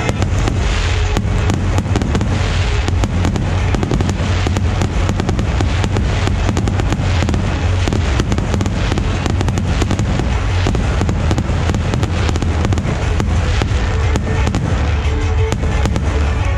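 Fireworks display: aerial shells bursting in quick succession, with a dense, unbroken crackling and popping over a deep rumble.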